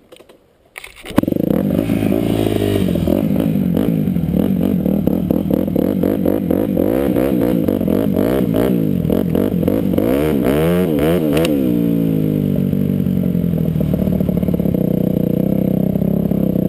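Dirt bike engine under way on a sand trail, starting up loudly about a second in. Its pitch rises and falls with the throttle and gear changes, swinging quickly up and down in the middle stretch.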